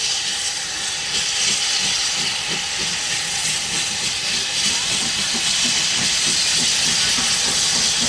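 Saddle-tank steam locomotive approaching with steam hissing loudly and steadily.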